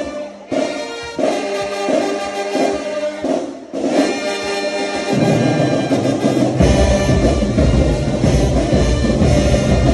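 High school marching band brass playing short, punchy chords; about halfway through, low drums come in and the band plays on at full volume with heavy bass drum underneath.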